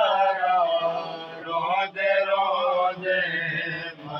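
Men chanting a noha, a Shia mourning lament, in a slow, wavering melody with long held notes.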